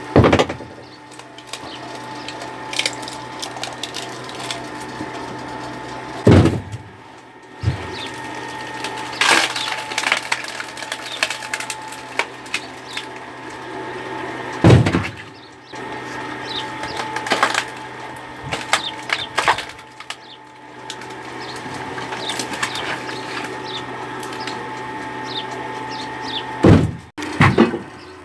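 Electric screw (cone) log splitter running with a steady hum as its threaded cone bores into pine rounds, with crackling and several loud cracks as the logs split apart.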